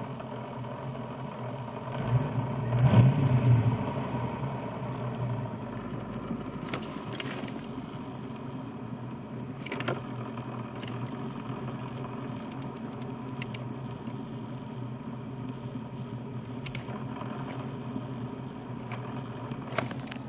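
Ford Mustang GT's 5.0 L (302) V8 idling with the clutch pedal out, driving a T-5 manual transmission whose bearings are shot, so the steady drone carries the bearing noise. It swells louder for a moment about two to three seconds in, and a few faint clicks come through.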